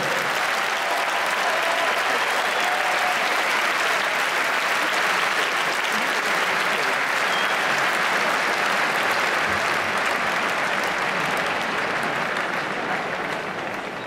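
Large arena audience applauding steadily, beginning to die down near the end.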